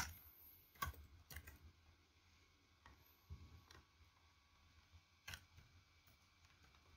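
Faint, sparse keystrokes on a computer keyboard: a handful of separate clicks, the sharpest right at the start, over near silence.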